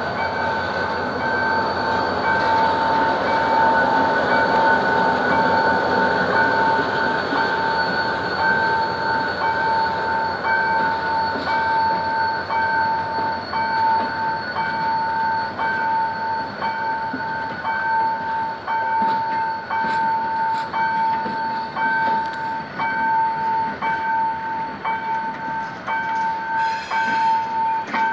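GM GT-22CW diesel locomotive hauling a passenger train as it pulls away, its engine and the rolling coaches making a steady rumble that is loudest a few seconds in. Through it a level-crossing warning alarm sounds a steady pulsing high tone.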